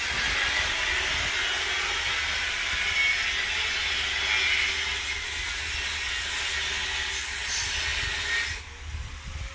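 A power tool, likely an angle grinder, grinding steel during truck chassis-frame reinforcement work, a steady high hiss that stops sharply about eight and a half seconds in.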